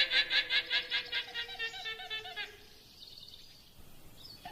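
Llama calling: a rapid run of high, squeaky notes, about six a second, lasting some two and a half seconds, with a second run starting near the end.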